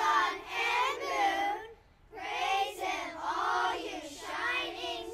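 A group of children reciting a psalm aloud in unison, in a sing-song chorus, in two phrases with a short pause about two seconds in.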